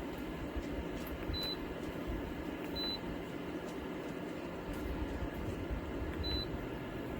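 Dreo 1500W PTC ceramic space heater running with its fan blowing, a steady even whoosh.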